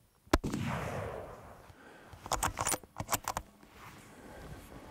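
A single rifle shot about a third of a second in, its report echoing away for about a second. About two seconds later comes a quick run of sharp metallic clicks as the bolt of the scoped bolt-action rifle is worked to chamber another round.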